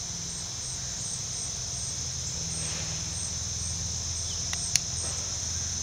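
Steady chorus of insects chirring, with a fainter high chirp repeating about two to three times a second above it. A single sharp click near the end.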